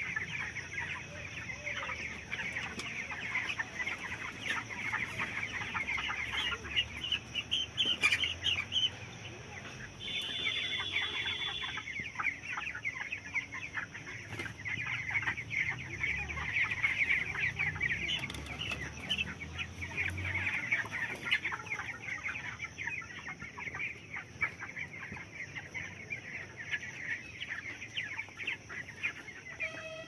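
A flock of 21-day-old broiler chicks cheeping continuously, many short high peeps overlapping into a steady chatter, with a brief lull about ten seconds in.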